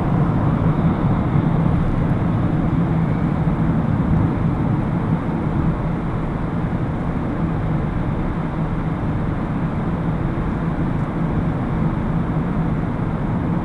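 Steady road and engine noise inside a car's cabin while it drives through a road tunnel, with a constant low hum.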